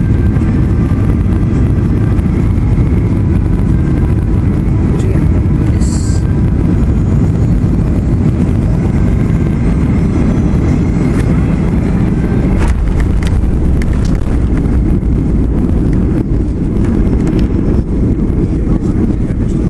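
Cabin noise of a Boeing 737 airliner landing: the steady, loud rumble of engines and airflow heard through the fuselage, with a few knocks about two-thirds of the way in as the wheels touch down on the runway.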